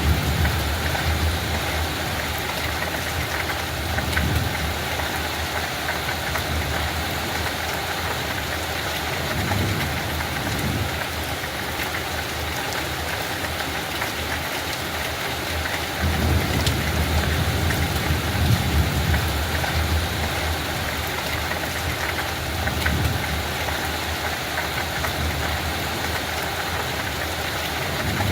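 Steady rain hiss with low rumbles that swell and fade several times.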